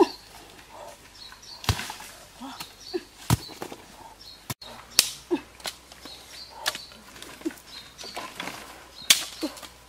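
Dry sticks and branches snapping and knocking together as firewood is gathered and broken by hand. There are several sharp cracks, about a second or two apart.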